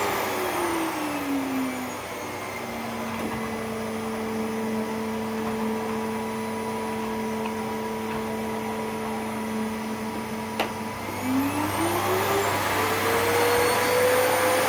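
Hoover 2000-watt vacuum cleaner motor running. Its pitch falls in the first couple of seconds, holds steady and lower, then climbs back up after a sharp click near the end.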